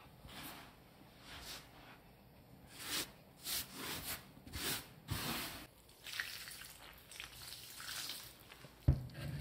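Hands working crumbly bread dough on a floured tabletop: a series of short rubbing, scraping and squishing strokes, with a dull thump near the end as the dough is pressed down.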